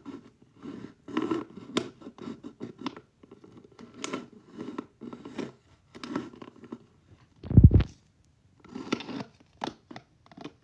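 Scratchy rustling and handling noises close to the microphone, in irregular short bursts with clicks, and one loud dull thump about three-quarters of the way through.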